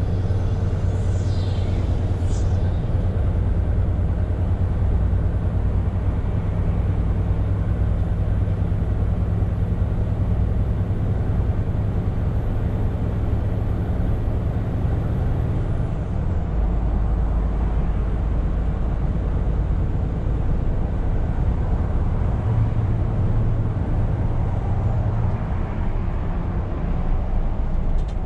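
Scania R520 truck heard from inside the cab at highway speed: a steady low engine drone under tyre and road noise. The drone shifts lower about sixteen seconds in, and near the start there are two short falling high-pitched sweeps.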